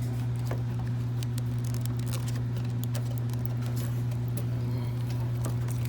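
Light clicks and rustling of a car's body wiring harness being pressed back into its track, over a steady low hum.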